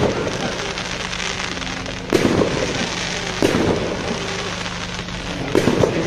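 Fireworks display: firework shells bursting with sharp bangs about two seconds in and again a second later, then a quick run of bangs near the end, with continuous crackle and hiss between.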